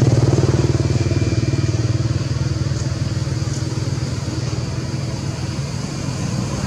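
An engine running with a steady low hum that slowly grows quieter.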